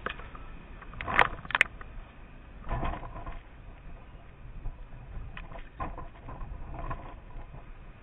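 Footsteps in snow, a soft crunch every second or so, with a few sharp clicks about a second in.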